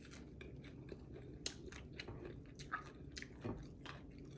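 Someone eating close to the microphone: soft chewing and biting with scattered small crunches and clicks.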